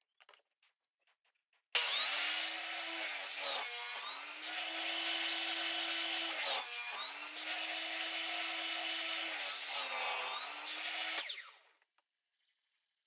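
Table saw running and crosscutting sheet-wood parts on a sled: a steady motor whine that starts abruptly about two seconds in, sags in pitch a few times as the blade bites into the wood under load, then stops near the end.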